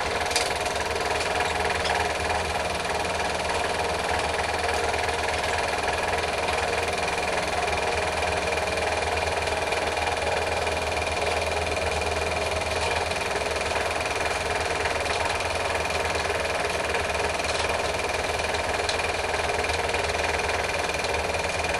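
A small machine running steadily, with a constant whirr and a low hum.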